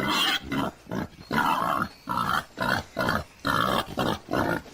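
Warthog grunting in a rapid run of short, rough grunts, a few each second.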